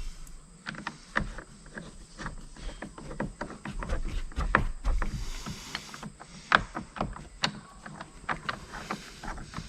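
Irregular clicks and knocks of tools and hardware being handled, with brief rustling twice.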